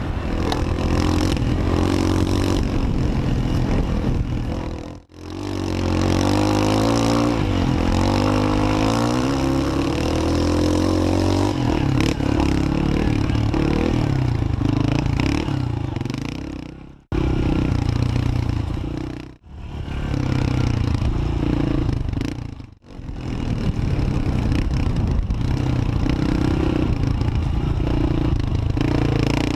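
Motorcycle engine running while being ridden, its pitch rising and falling with throttle and gear changes, over wind and road noise. The sound drops out briefly four times.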